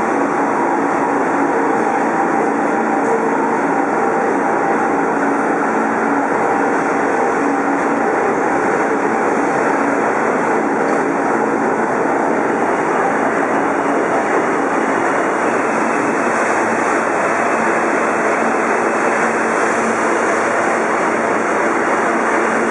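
New York City Subway trains in an underground station: an R46 pulling out at first, with a steady hum in the first dozen seconds. Then an R160A with Alstom ONIX propulsion rolls in, its wheels and motors adding a hiss that grows toward the end. The noise stays loud and unbroken throughout.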